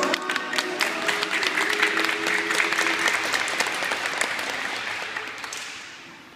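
Audience applauding a children's gymnastics routine as its backing music fades out underneath; the clapping dies away near the end.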